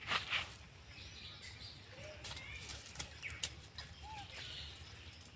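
Rhesus macaques shuffling and rustling in dry leaves, loudest in two short bursts right at the start, with a couple of sharp clicks and a few brief chirp-like calls.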